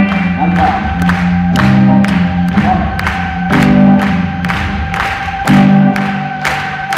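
Live band playing: a drum kit keeping a steady beat of about two hits a second under a bass line whose notes change every second or two, with one high note held unbroken over it.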